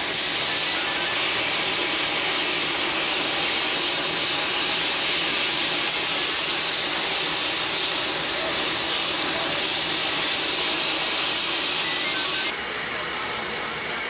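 A steady, loud hiss, strongest in the high range, changing in tone abruptly about six and twelve and a half seconds in.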